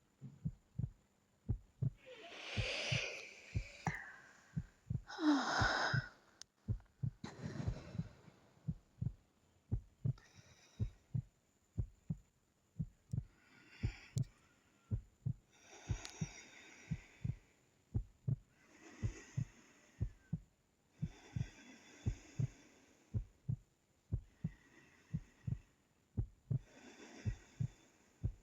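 A woman's slow breathing in sleep: soft breaths in and out every few seconds, fuller near the start. Steady low heartbeat thuds run under it, about two a second.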